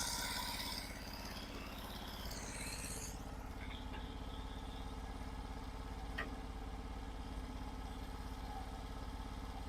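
Sawmill engine idling steadily between cuts, with a faint click about six seconds in.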